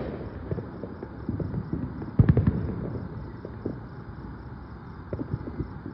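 Fireworks going off: scattered pops and small crackles, with one louder bang about two seconds in.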